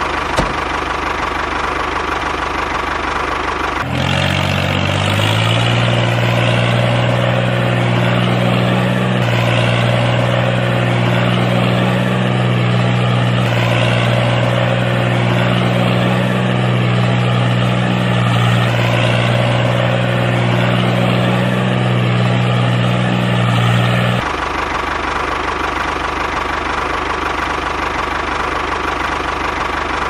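Tractor engine running steadily, a loud continuous drone. A strong low steady hum comes in about four seconds in and drops away about six seconds before the end.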